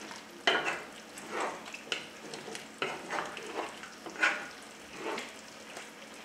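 Wooden spoon and wooden spatula tossing halved baby artichokes in broth in a frying pan: a run of irregular soft scrapes and wet knocks, about one every half second to second, over a faint steady hiss from the simmering broth.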